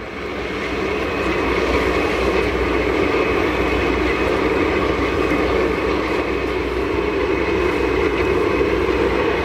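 Boeing 747-400 jet engines running steadily with the aircraft standing still, a deep rush with a thin whine on top, getting louder over the first second or so and then holding steady.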